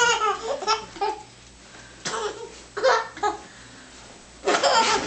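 A child's high-pitched voice laughing and giggling in short fits, about four times.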